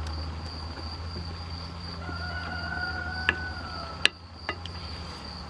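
A rooster crowing once, a single long call about two seconds in that falls away at the end, over a steady high insect trill. Two sharp clicks come near the end.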